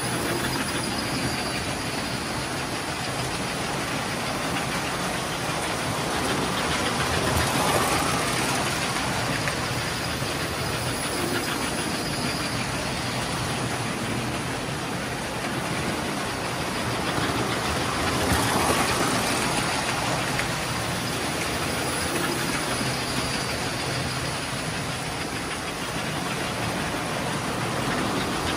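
Several toy electric trains running at once on three-rail track: a steady rolling rumble of wheels and motors that swells each time a train passes close, about every ten seconds.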